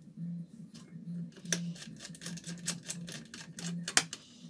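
Irregular small clicks and taps of a screwdriver and hands working on a laptop motherboard and its cooling heatsink, with two sharper clicks about one and a half seconds in and near the end.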